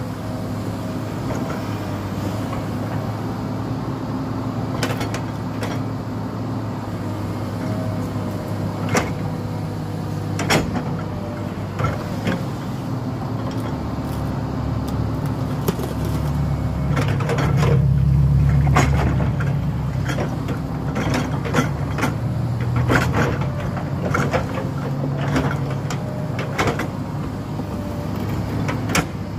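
Komatsu PC210 hydraulic excavator's diesel engine running steadily as it digs, with sharp knocks and clanks of the bucket striking soil and stones scattered throughout. The engine noise grows louder for a few seconds around the middle.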